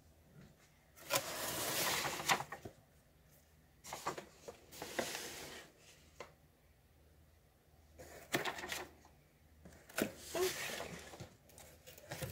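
A cardboard subscription box and its thin cardboard packing pieces being handled and slid across a tabletop: rustling and scraping with light knocks, in several short bursts.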